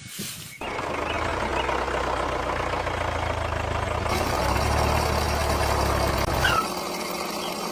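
A motor starts up suddenly and runs steadily with a low hum; the low hum drops away near the end while a lighter running noise carries on.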